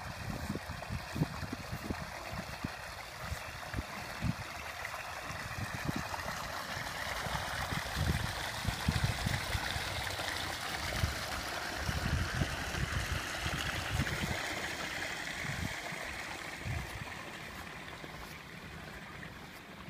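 Water gushing out of a plastic inflow pipe into a pond and splashing on the surface: a steady rushing that grows louder toward the middle and fades near the end. Irregular low bumps run underneath.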